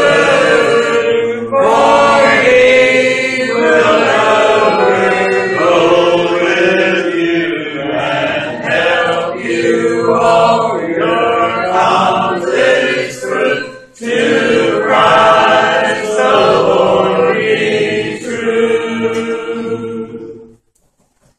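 Church congregation singing a hymn a cappella, mixed voices in harmony. The last chord is held and stops about twenty seconds in.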